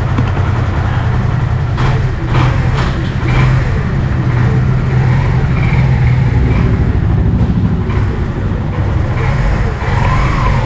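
Kawasaki Barako II motorcycle's single-cylinder four-stroke engine running steadily under way during a test ride, with a few short knocks about two to three seconds in.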